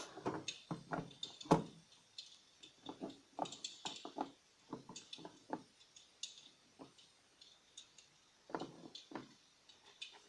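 Irregular light clicks and knocks, a few a second, with a quieter stretch in the second half.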